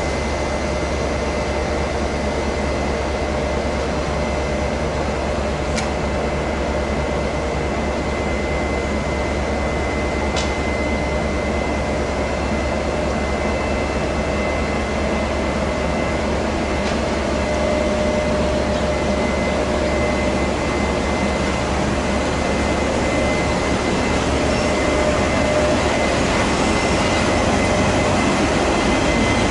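TRA E200-class electric locomotives running at the platform: a steady electrical hum with a high, steady whine, a few faint clicks, and growing louder over the second half as a second locomotive draws alongside.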